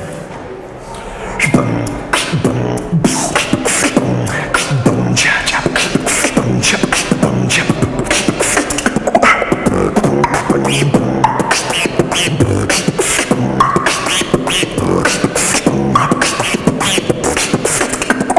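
Solo human beatboxing: a fast, dense run of mouth-made drum sounds, sharp clicks and hits with pitched bass sounds beneath, starting up about a second and a half in and then unbroken.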